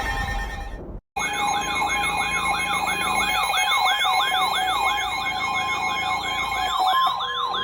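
Weather radios sounding their alert for a flash flood warning: an electronic siren alarm sweeping up and down about three times a second over a steady alarm tone. The sound cuts out completely for a moment about a second in, then resumes.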